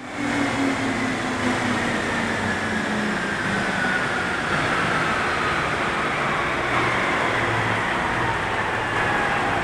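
Large digester-gas engine generator sets winding down after shutdown. A whine falls slowly and steadily in pitch over a steady machinery rumble.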